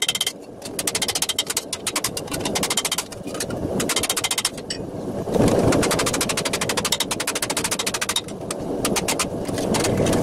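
Rapid hammer blows, several a second, from a modified bricklayer's escutcheon hammer on a sheet-steel gauntlet shell held over the horn of an anvil. The steel is being worked hot to draw in the gauntlet's waist. The runs of blows break off a few times, and around the middle there is a louder rasping noise as the piece is turned in the tongs.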